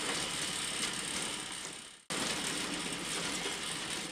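Elevator mechanism sound effect: a steady mechanical rattling whir. It fades out about two seconds in, starts again abruptly, and stops at the end.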